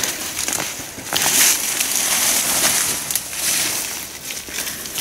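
Eggplant leaves and stems rustling and crackling as plants are handled and pulled up by the roots, with small snaps of dry stalks; loudest from about a second in.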